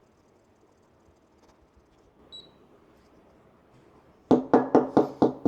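A manual coffee grinder with a built-in sieve, shaken hard from side to side: a run of knocks, about four a second, starting about four seconds in. A faint short beep sounds about two seconds in.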